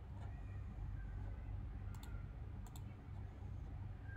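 A few sharp computer mouse clicks, one about two seconds in and a quick pair shortly after, over a steady low hum.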